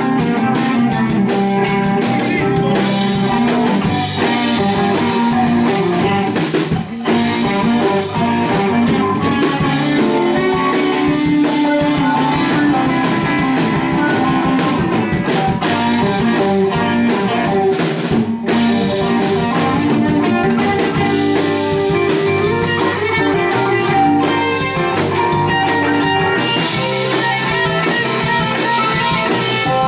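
Live band jam: electric guitar over a drum kit playing a loud, steady blues-rock groove, with two brief breaks, about seven and eighteen seconds in.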